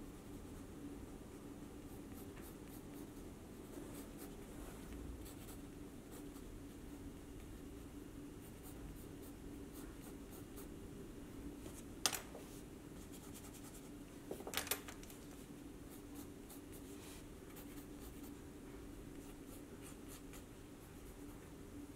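Pencil scratching lightly on sketchbook paper in short strokes, over a steady low hum. A sharp tap about twelve seconds in and a short cluster of knocks a couple of seconds later stand out as the loudest sounds.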